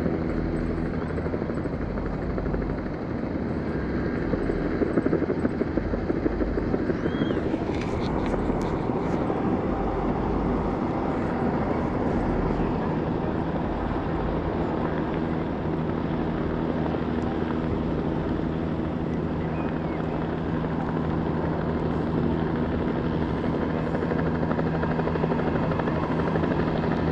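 A steady, low engine drone with a held hum, over a constant noisy rush, with a few clicks about eight seconds in.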